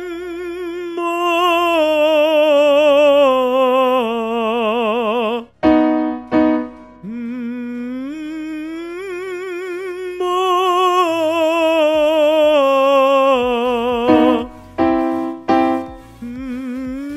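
Male singer's vocal exercise over piano: a sustained hum opens out into a louder sung "ma" with wide vibrato, about a second in and again about ten seconds in. Each phrase slides between notes. Short piano notes sound in the two gaps, about six and fifteen seconds in.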